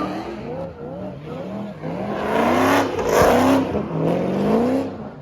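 Dodge Hellcat's supercharged V8 revving hard, its pitch climbing and dropping back several times, loudest in the second half.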